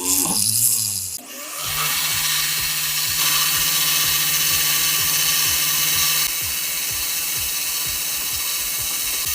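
A power tool running steadily with a rapid even ticking and a high hiss, starting about a second and a half in and dropping slightly in level a little past the middle.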